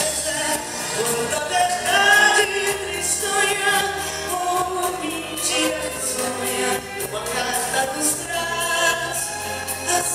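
A solo voice singing a song with held, wavering notes over an accompaniment with a steady bass line.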